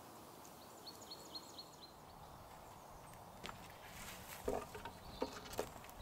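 A small bird sings a quick run of about six repeated high notes about a second in. In the second half come footsteps on dry woodland ground, with a few knocks and rustles as someone moves about, loudest near the end.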